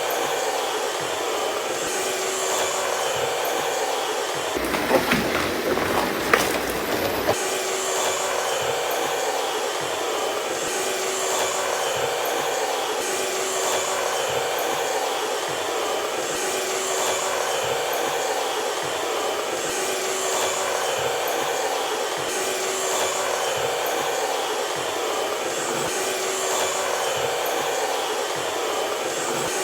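A vacuum cleaner's motor running with a steady whir and a faint regular pulse about every second and a half. About five seconds in, a couple of seconds of knocks and clatter break through.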